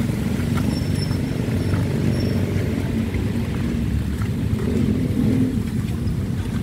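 Steady low rumble of motor vehicle engines running.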